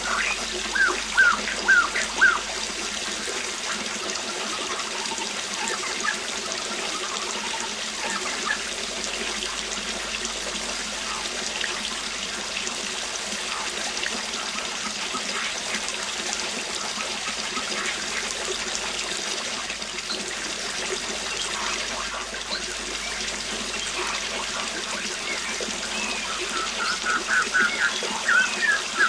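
Steady rush of a waterfall with birds singing over it: a run of short chirps in the first couple of seconds, then a quicker burst of chirping near the end.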